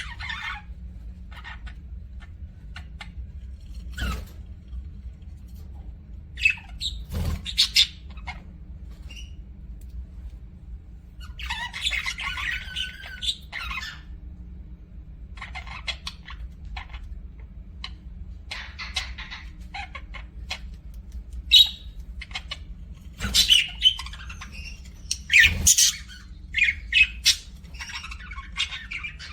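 Pet budgerigars chattering in short, irregular chirps and squawks, with a few sharp clicks, over a steady low hum.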